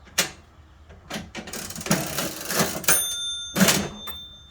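Antique National cash register being rung up by its hand crank. A sharp click is followed by about two seconds of clattering mechanism. The bell strikes about three seconds in and keeps ringing, and a loud clunk follows as the cash drawer pops open.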